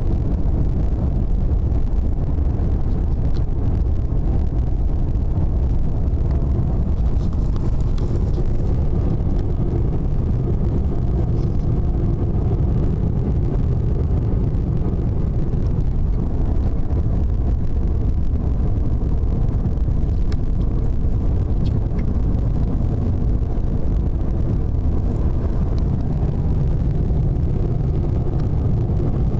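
Steady low road and engine rumble inside a moving vehicle's cabin, running at an even level.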